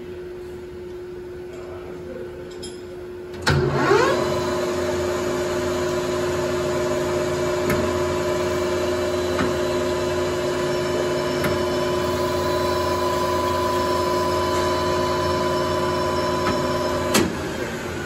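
Metal lathe switched on about three seconds in: the motor and chuck spin up with a short rising whine, then run steadily for about thirteen seconds, with a few faint ticks, while the tool faces off the end of the stock. It shuts off with a clunk near the end.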